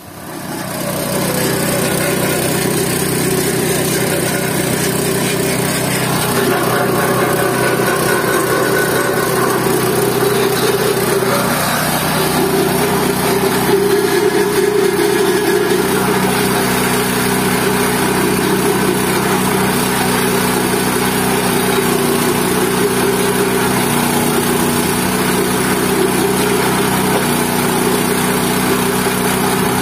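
GT-14 organic-waste pulverizer starting up and then running steadily at a loud, constant level, with a steady mechanical hum.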